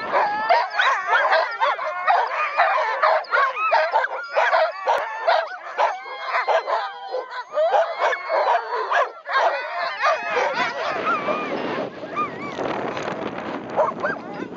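A team of sled dogs barking, yelping and howling over one another, the eager clamour of a team wanting to run. About ten seconds in, the barking mostly stops and a steady rushing noise takes over as the team runs across the snow, with only a few yelps left.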